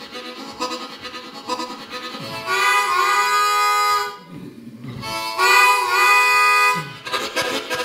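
Solo harmonica playing a train imitation: a fast, even chugging rhythm, broken twice by a loud, long held chord with a bend in pitch like a steam-train whistle, before the chugging picks up again near the end.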